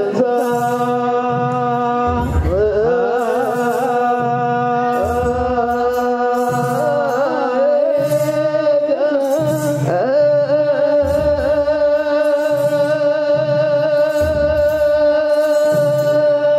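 Ethiopian Orthodox religious singing: voices holding long, slowly wavering notes over regular low drum beats, with short high rattles about once a second.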